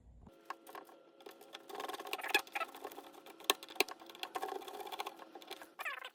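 Small parts of a hot lather machine being handled and fitted, with small screws going in: a busy run of light clicks, taps and scrapes.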